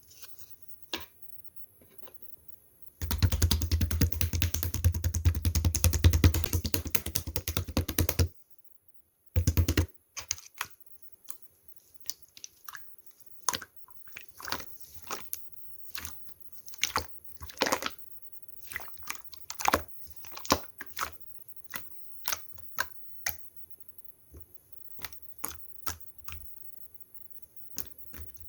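Slime being worked by hand: a dense, loud run of crackling and popping for about five seconds, a short burst after a pause, then scattered single sharp clicks and pops.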